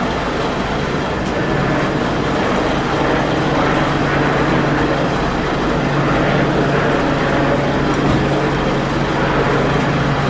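Large vehicle engine running steadily: a low, even hum under a broad hiss, the hum growing a little stronger after about a second and a half.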